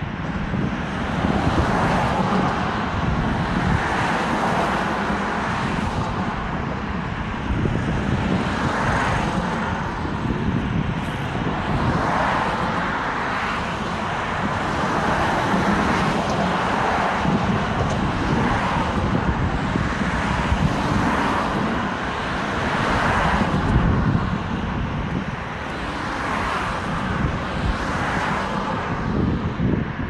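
Road traffic on a bridge: cars pass every few seconds, each one swelling and fading, over a steady background of tyre and engine noise.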